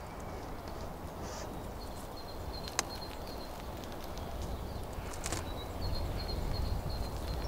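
Outdoor ambience: a steady low rumble, with a quick run of faint high chirps heard twice, about two seconds in and again near the end, and one sharp click about three seconds in.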